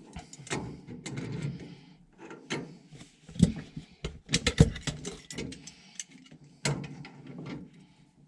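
Irregular clicks, knocks and scrapes of metal pipe fittings and hand tools being handled, with two louder knocks around the middle.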